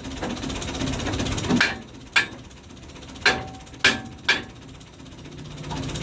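Hammer blows, five sharp strikes at uneven spacing, some with a short metallic ring, as in metalwork on a trolley under restoration.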